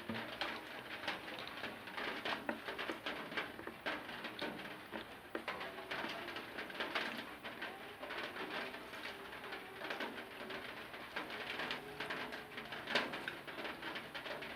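Close-up eating sounds: wet chewing and lip smacking with many small clicks, from rice and curry being eaten by hand. Behind them a low cooing comes and goes every second or two.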